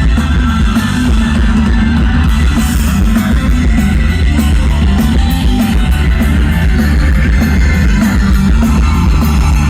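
A live rock band playing loud and steady: electric guitars over heavy bass and drums, with cymbals struck at a steady pulse.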